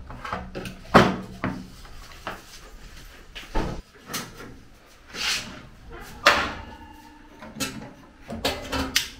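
Irregular knocks, clicks and short scraping swishes of kitchen items being handled as a container is opened, loudest about a second in and twice more past the middle.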